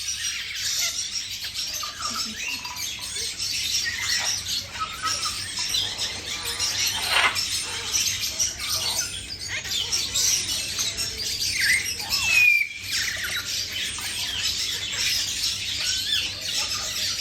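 Many caged birds chirping and squawking together in a dense, continuous high-pitched chatter, with one clearer whistled call about twelve seconds in.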